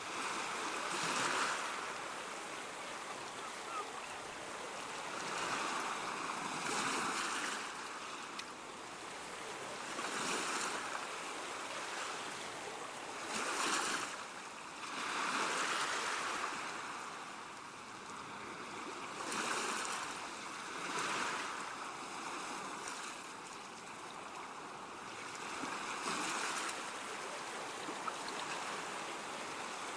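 Ocean surf: waves breaking and washing ashore in a steady hiss that swells into a louder surge every three to six seconds.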